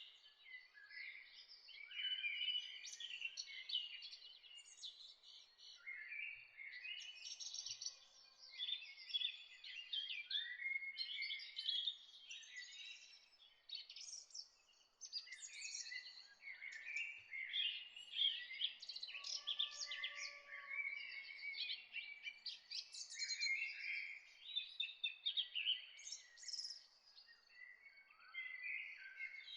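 Chorus of several songbirds chirping and trilling together, calls overlapping almost without pause, over a faint steady hiss.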